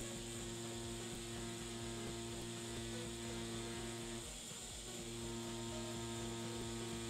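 Tattoo machine running at about 7 volts with a steady electric hum as the needle lines into fake skin, stopping for under a second about four seconds in, then running again.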